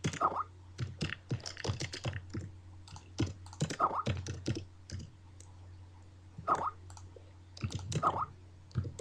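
Computer keyboard typing in irregular bursts of rapid key clicks, with a short chirping tone that comes four times.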